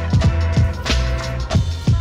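Old-school hip-hop instrumental as background music: a steady drum beat of punchy kicks and snares over deep bass and held notes.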